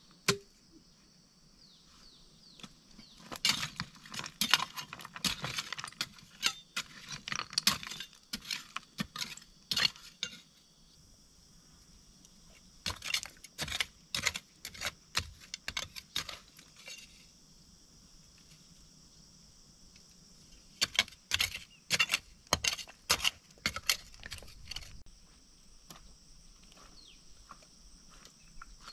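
Loose slate slabs and shards clinking and clattering against each other as they are shifted by hand, in three spells of quick, sharp clinks.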